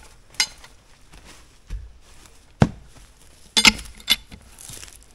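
Scattered sharp clinks and knocks, about six separate strikes with a low thud among them and a quick cluster about three and a half seconds in, as gear is worked against a log to rotate it.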